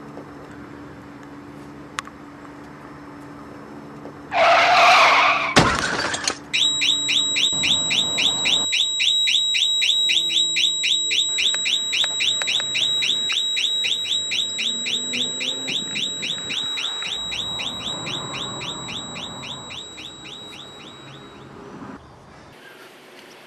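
A short screech and a bang, then a car alarm chirping rapidly, about four chirps a second, slowly fading away.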